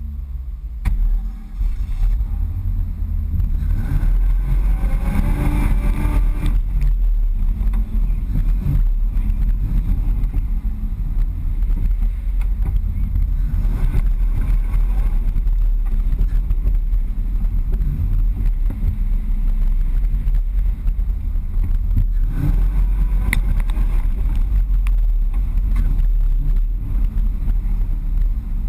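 Ford Bronco's engine running on an off-road trail, a steady deep low rumble, with a louder stretch of higher, wavering pitch about four to six seconds in and again around twenty-three seconds in.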